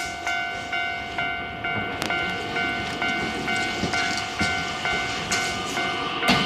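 Railway level crossing's electronic warning bell ringing steadily at about two strikes a second. Under it, the rail noise of an approaching electric commuter train builds in the second half, with a sharp clack about two seconds in and another near the end.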